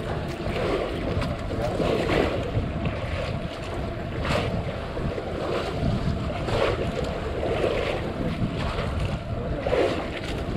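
Wind buffeting the microphone at sea, with waves splashing against the hull of a small outrigger boat in recurring surges.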